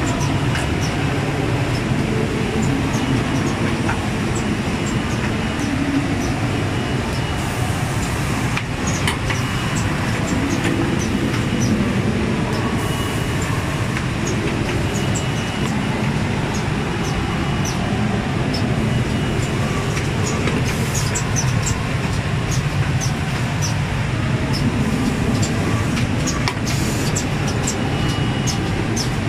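Automatic wine-box forming machine running: a steady mechanical clatter and rumble with many quick sharp clicks, and a short hiss about every six seconds.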